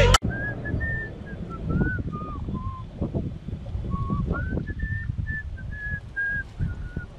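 A person whistling a slow, wandering tune, one note after another, over a low rumble of wind on the microphone.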